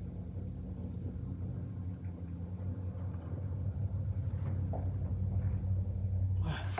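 A steady low engine hum that grows louder and then stops just before the end, where a short noisy sound follows.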